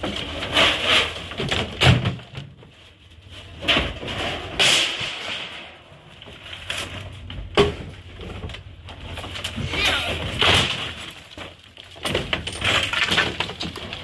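Renovation debris being unloaded and dumped: a run of irregular crashes and clatters, each lasting about a second, with pieces breaking.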